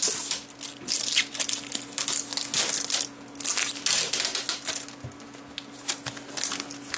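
Blue tape being peeled off the clear plastic cover of a Tiko 3D printer: a run of short ripping and crinkling bursts, one after another, as the tape comes away from the plastic.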